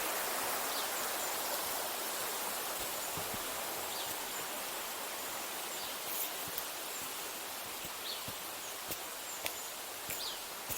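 Steady rush of flowing river water, slowly fading, with a few faint clicks and short high chirps over it.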